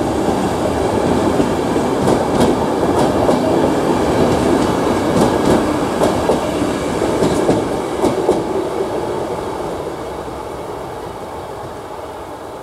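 České dráhy express passenger coaches rolling along the track, wheels clicking over the rail joints. The rumble fades steadily over the last few seconds as the train pulls away.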